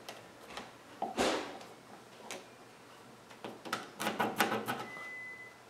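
A pencil scratching on painted drywall as it traces around an electrical box held to the wall: short scattered strokes, with a busier run of them about four seconds in.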